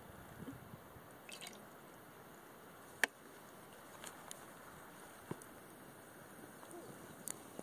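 Faint handling of a stainless steel bowl of soy sauce and sake with a wooden ladle, giving soft liquid sounds. There is one sharp click about three seconds in and a few lighter ticks after it.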